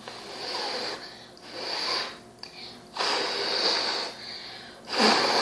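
Fluffy shaving-cream slime being squeezed and stretched by hand, giving four squelching bursts of about a second each, with gaps between them.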